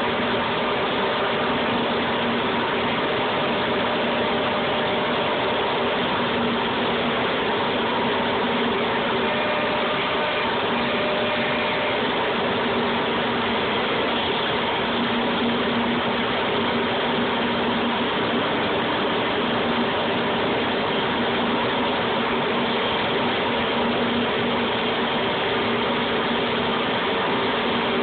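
VR 1005 TT multi-spindle CNC router machining a panel: a steady mechanical whir and hiss of its spindles and dust extraction, with a few faint steady tones in it.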